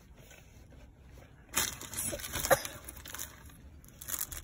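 Crackling and crunching as a surprise egg and its wrapping are handled and opened: a cluster of sharp crackles starting about a second and a half in, loudest about a second later.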